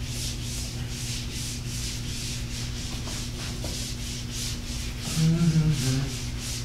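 Whiteboard eraser wiping back and forth across a whiteboard, a rhythmic swish of about three strokes a second. About five seconds in, a person's voice sounds briefly over it.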